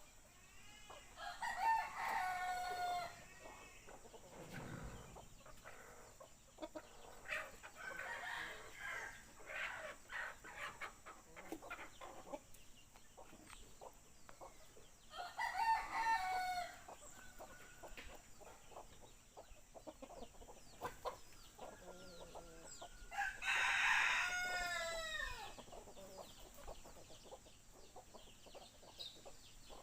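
Roosters crowing three times, about a second in, around the middle and about two-thirds of the way through, each crow falling in pitch at its end. Fainter clucking calls come in between.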